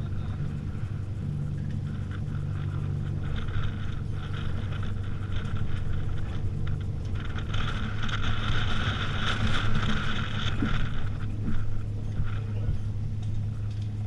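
Sailing yacht's inboard engine running steadily at low revs while manoeuvring in to dock, under the rush of strong wind. For a few seconds in the middle a louder, higher-pitched whirr rises over it, then drops back.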